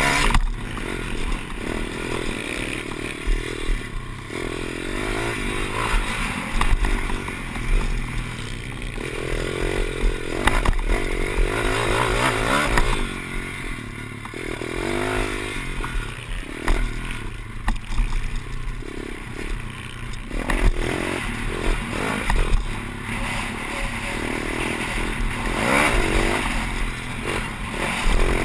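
Pit bike engine ridden hard on a dirt track, heard from on the bike, its revs rising and falling again and again as the rider opens and closes the throttle.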